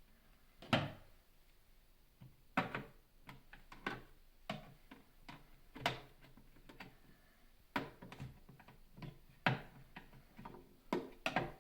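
Irregular light clicks and knocks, about a dozen, as the rubber plugs are worked out of a tilting chocolate refiner's housing by hand.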